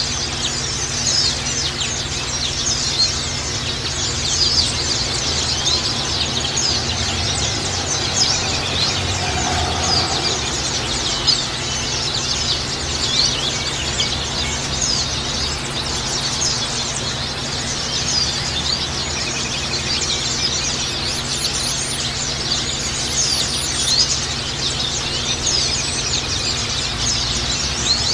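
A flock of white-eyes (pleci, Zosterops) chirping and twittering in a dense, unbroken chorus of short high notes, over a steady low background noise.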